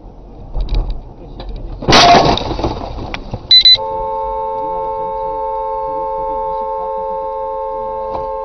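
A sudden loud crash as an object smashes into a car's windshield, the glass cracking and crunching for about a second. A short high beep follows, then a car horn sounds steadily, held on a two-note chord.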